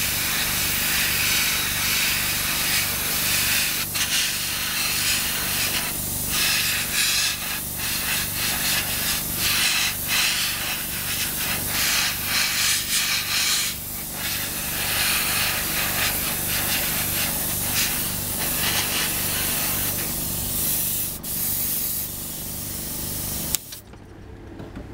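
Airbrush hissing as it sprays paint, in bursts with brief breaks, over a steady low hum with a regular pulse. The hiss and hum cut off suddenly near the end.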